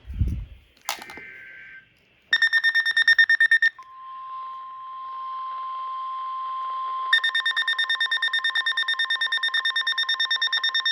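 Weather alert radio going off. A short burst of rapid electronic beeping about two seconds in is followed by a steady single-pitch alert tone for about three seconds: the NOAA Weather Radio warning alarm tone that comes before a new warning. About seven seconds in, a loud, fast-pulsing alarm beep starts and keeps going.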